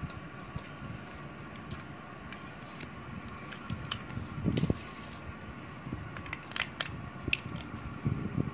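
Plastic Lego bricks clicking and scraping as pieces are handled and pressed onto a baseplate: scattered light clicks, with a louder clatter about four and a half seconds in and several more in the last few seconds. A faint steady hum runs underneath.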